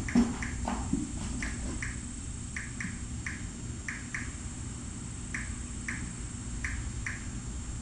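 Light clicking in quick pairs, coming unevenly every half second or so, typical of a cat's claws tapping on a hard floor as it walks. A single thump comes just after the start, over a steady low hum.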